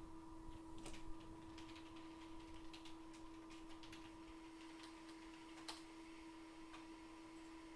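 Faint, irregular small clicks and ticks, typical of hand tools being handled on a repair bench, over a steady electrical hum from the workbench equipment.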